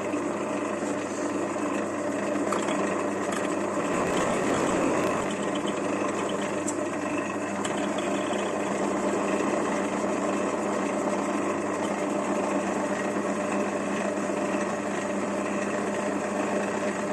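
Small hobby metal lathe running steadily, its motor and gearing giving a constant hum and whine, with a brief louder, rougher stretch about four seconds in.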